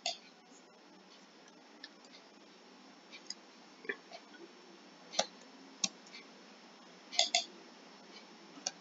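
Faint, scattered clicks of a computer mouse and keyboard as text on a document is moved about, with a double click a little after seven seconds.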